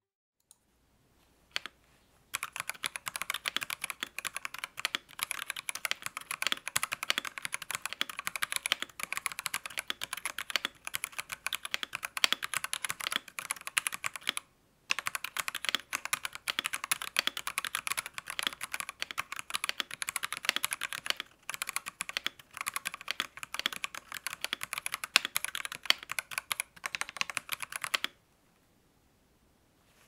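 Fast typing on a Royal Kludge RK H81 mechanical keyboard with factory-lubed Sky Cyan switches, plate-mount stabilizers and ABS keycaps: a dense stream of key clacks. It breaks off briefly about halfway through and stops a couple of seconds before the end.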